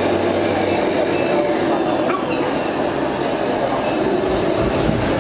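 Radio-controlled scale 6x6 dump truck driving, its motor and drivetrain giving a steady mechanical running noise.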